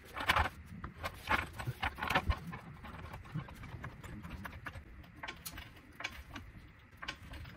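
Hydraulic floor jack being pumped by its handle to lift a car: a run of irregular clicks and knocks, a few a second, loudest in the first two and a half seconds.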